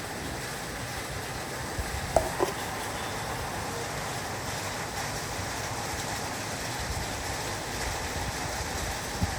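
Heavy rain falling on a roof: a steady hiss, with two louder taps about two seconds in and another near the end.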